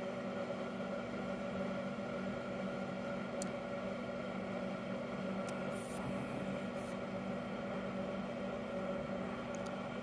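Steady electrical hum and whir, with a few faint ticks.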